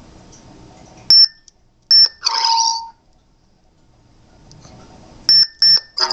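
Electronic beeps from a lightsaber's Crystal Focus v5 soundboard speaker as its switch is pressed: two short high beeps about a second apart, then a short falling electronic sweep. Near the end come two more quick beeps, followed at once by the start of a louder electronic sound effect.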